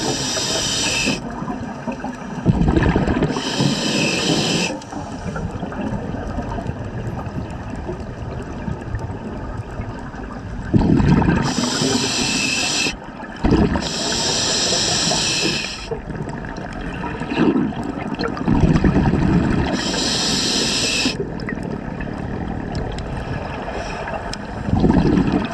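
Scuba regulator exhalations underwater: six rushes of exhaled bubbles, each a second or two of hissing and rumbling, coming every few seconds with a longer gap in the middle, over a steady underwater hiss.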